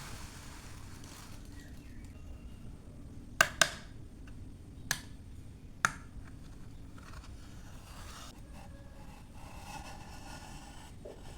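Four sharp knocks or taps, two in quick succession about three and a half seconds in, then one at about five seconds and one near six, each with a short ring, followed by faint scraping.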